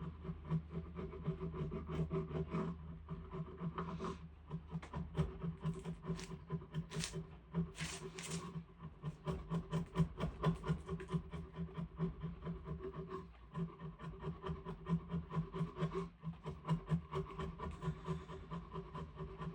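A hand tool rubbing and scraping on diamond willow wood in quick back-and-forth strokes, several a second, over a steady low hum. A few short hisses come about seven to eight seconds in.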